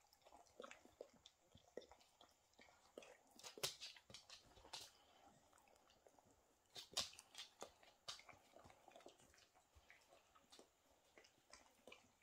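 Small dog chewing dry kibble from a plastic bowl: faint, irregular crunches and clicks, a few louder ones scattered through.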